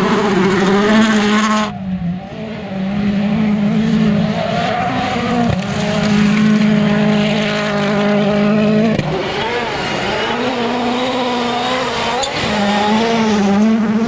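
Rally cars' engines running at high revs, held near a steady high pitch. The note drops and picks up again a few times as one car gives way to the next.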